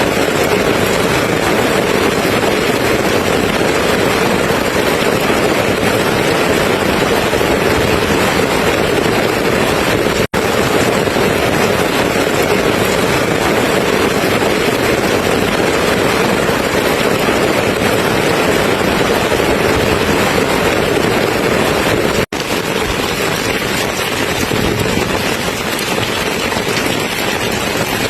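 Steady heavy rain, an even rushing hiss that briefly cuts out twice, about ten and twenty-two seconds in, and is a little softer after the second cut.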